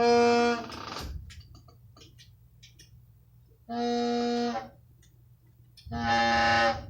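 A horn blown in three blasts of about a second each, each on one steady note: the first right at the start, the next about four seconds in, and the last near the end.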